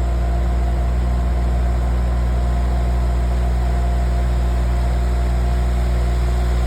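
Cat excavator's diesel engine running steadily at a constant speed.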